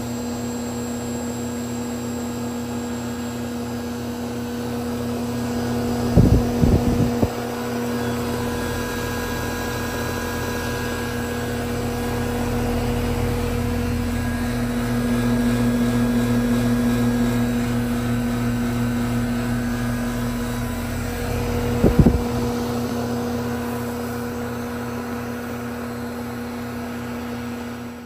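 Goodman GSZ13 heat pump outdoor unit, refitted with a reciprocating compressor, running with a steady mechanical hum. A cluster of brief knocks comes about six seconds in and another near twenty-two seconds; these are the loudest moments.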